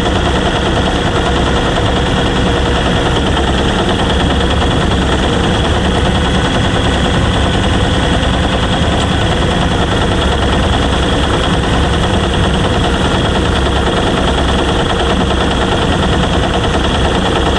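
A small boat's engine and hydraulic net-drum winches running steadily with a rapid, even beat while the Danish seine is wound in over the stern.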